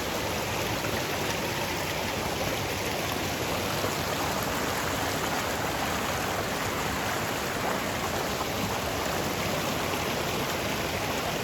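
Creek water rushing steadily at a stream crossing.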